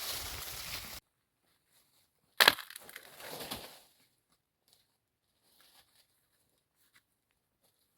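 Wood cracking sharply as it splinters, with about a second of crunching and snapping after it, like a dead branch being broken. Before it, a steady hiss cuts off suddenly about a second in; faint scattered ticks follow near the end.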